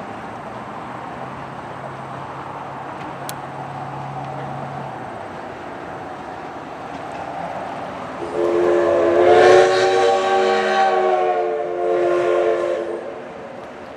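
Everett Railroad #11 steam locomotive blowing its chime whistle: a chord of several notes, one long blast a little past halfway through followed by a shorter blast, over the low steady rumble of the approaching train.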